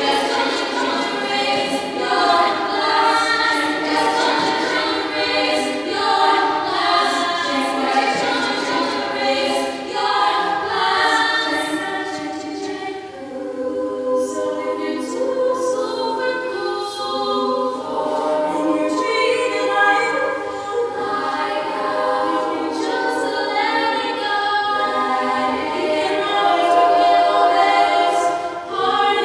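All-female a cappella group singing unaccompanied in harmony, several voices sounding together in chords. It eases briefly in loudness near the middle.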